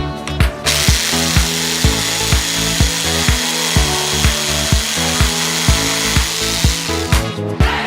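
An electric hand router (hand milling machine) running and cutting wood, a steady high whine and hiss that starts about half a second in and stops near the end. Background music with a steady beat plays throughout.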